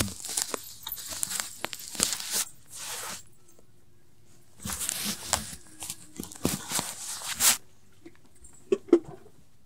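Rustling and scraping handling noise in two stretches of bursts as the phone is moved against clothing and set in place, then two sharp knocks near the end.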